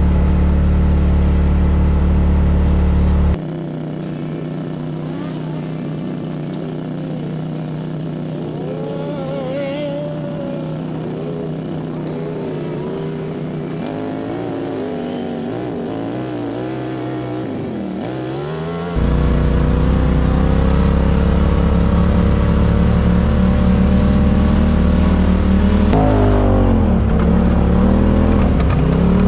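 Side-by-side UTV engines on a dirt trail: a loud steady run from inside a moving UTV, then from about three seconds in a quieter stretch where other UTV engines rise and fall in pitch as they rev and pass. From about 19 seconds in a loud steady engine sound returns, with revving swells near the end.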